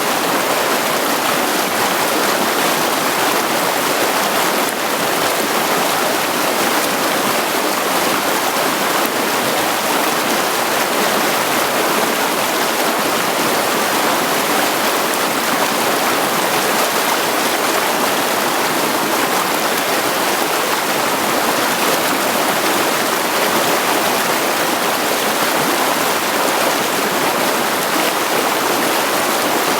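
Mountain stream running over rocks: a steady rushing and splashing of water flowing over stones.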